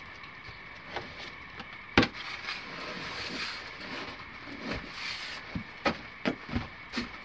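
Rustling of clothing and tent fabric with scattered knocks as a person dresses and pulls on rubber gumboots, a sharp knock about two seconds in, and a few low thuds near the end as the booted feet come down on rock and dirt.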